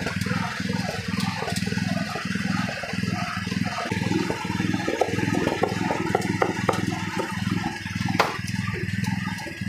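Cleaver knocking on a wooden chopping block as roast duck is cut up: a run of knocks in the middle and one sharper knock near the end. Under it runs a steady low hum that pulses about three times a second.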